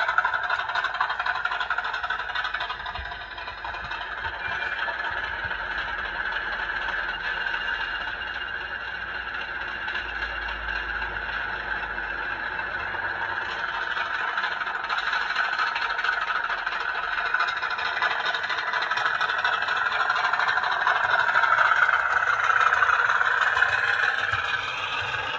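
Sound-fitted OO gauge model Class 50 diesel locomotive running: a steady diesel engine sound from its small on-board speaker, mixed with the rattle of the model on the track. It drops away a few seconds in as the train leaves, then grows louder again later on.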